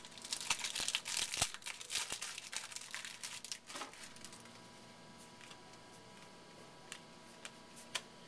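Baseball card pack wrapper being torn open and crinkled, a dense run of crackling for about the first four seconds, then a few isolated faint ticks.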